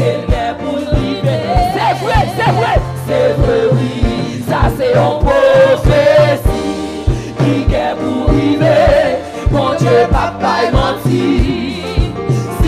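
Gospel worship song: a woman leading the singing with backing singers joining in, over a steady drum beat and bass.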